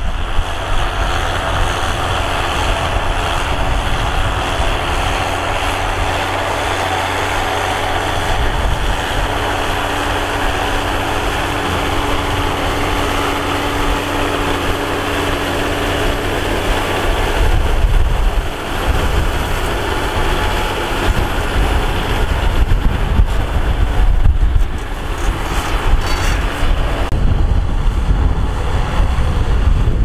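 John Deere tractor diesel engine running steadily under load while pulling a disc harrow through dry soil. The sound shifts a few times as the view moves between tractors.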